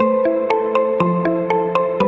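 Instrumental intro of a pop song without singing: a melody of short plucked notes, about four a second, over longer held low notes.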